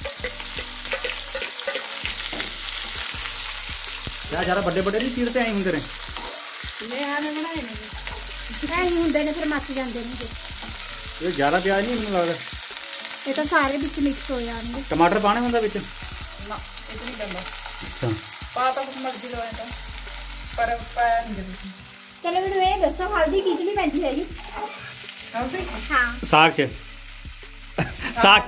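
Sliced onions sizzling in hot oil in a metal pan, stirred with a spatula. From about four seconds in, wavering pitched sounds rise and fall over the sizzle.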